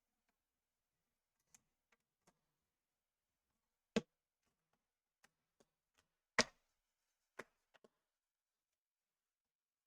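Scattered small clicks and taps of laptop parts and tools being handled on a workbench, with two louder sharp knocks about four and six and a half seconds in.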